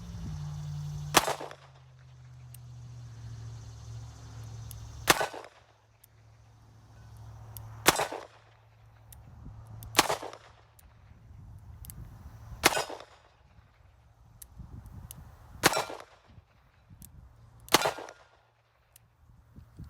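Seven revolver shots from a Smith & Wesson 586 L-Comp, fired slowly at two to three seconds apart, emptying its seven-round cylinder. A steady low rumble of wind on the microphone runs underneath.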